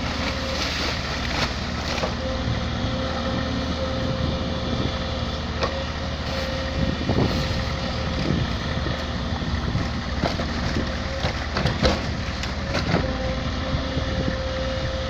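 SANY SY140 excavator's diesel engine running steadily under a held mid-pitched whine, with several sharp knocks in the second half.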